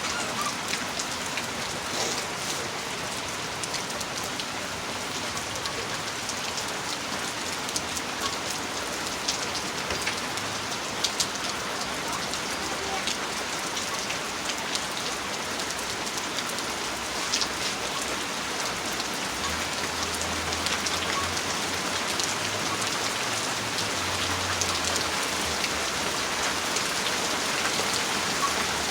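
Heavy rain falling steadily, with sharp ticks of drops striking hard surfaces. A faint low rumble comes in about two-thirds of the way through.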